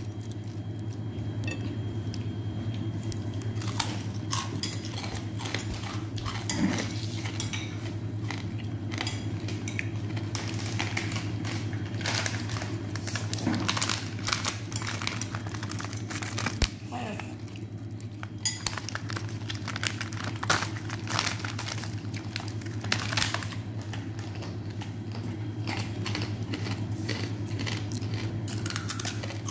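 Hands working through papaya salad on a plate, tearing cabbage leaves and gathering noodles and vegetables. Many small crackles and clicks of crisp vegetables and pork rinds against the plate, over a steady low hum.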